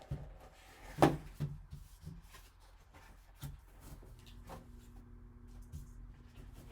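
Hands opening and handling a sealed cardboard card box: a sharp click about a second in, then a few softer knocks and clicks with light rustling. A faint low hum starts about four seconds in.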